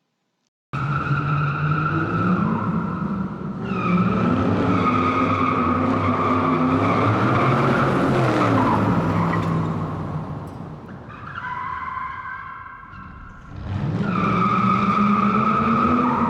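A car engine revving up and down with tyre squeal, starting abruptly just under a second in. The level dips briefly about two-thirds of the way through, then the revving picks up again.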